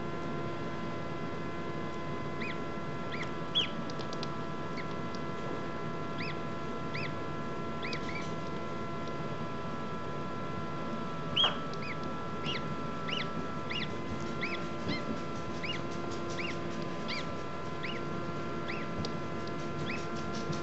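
Embden gosling peeping from inside its pipped egg: short, rising-and-falling peeps, about one a second at first and coming faster in the second half, two of them louder. A steady hum runs underneath.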